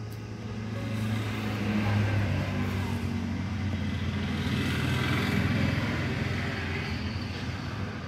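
A motor vehicle passing by, a rushing sound that builds, holds for a few seconds and then eases off, over quieter background music.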